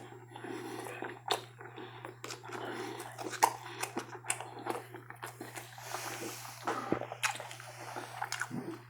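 Close-miked eating: chewing with frequent wet clicks and lip smacks.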